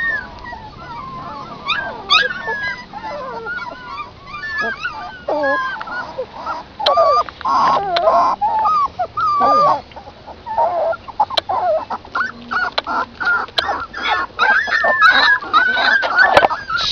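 Newborn puppies whimpering and squeaking as they nurse, many short high-pitched cries rising and falling and overlapping one another, with scattered clicks.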